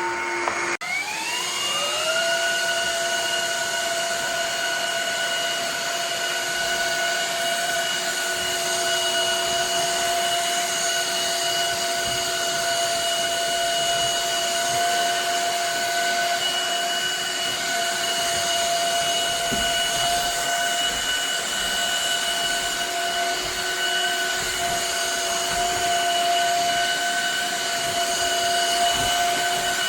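Shark HydroVac MessMaster cordless wet/dry vacuum-mop running: a steady motor whine over a rush of suction noise. About a second in, its pitch drops and then climbs over a second or so before holding steady.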